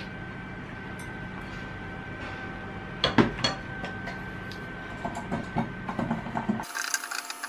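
Small clicks and taps of a pastry brush and glass oil pourer against a metal muffin tin as its cups are greased, with one sharp knock about three seconds in, over a steady low hum. Near the end the hum cuts off abruptly.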